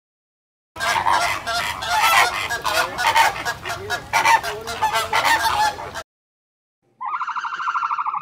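A crowd of animals calling at once, many overlapping calls for about five seconds, starting about a second in. After a short gap, a buzzing, rapidly pulsed call begins near the end.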